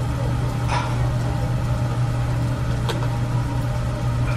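Steady low machine hum with a couple of faint clicks, about one second in and again near three seconds.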